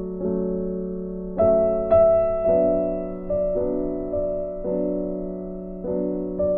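Background music: slow, gentle piano playing sustained chords, with the loudest notes struck about one and a half and two seconds in.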